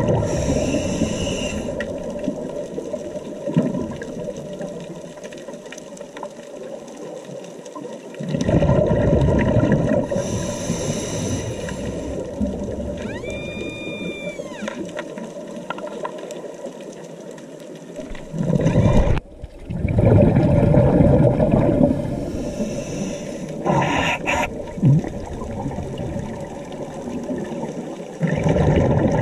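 Scuba diver breathing through a regulator underwater: a rumbling rush of exhaled bubbles about every nine to ten seconds, with quieter hissing between breaths. A brief arching whistle-like tone sounds about halfway through.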